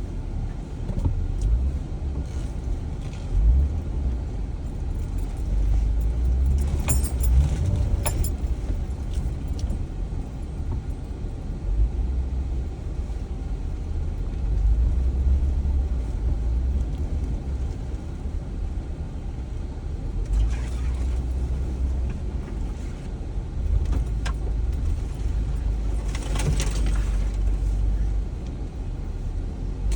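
Jeep driving slowly over a rutted dirt trail: a low engine and tyre rumble that swells and eases, with loose things in the cabin rattling and a few clatters as it jolts through the ruts, about a quarter of the way in and again near the end.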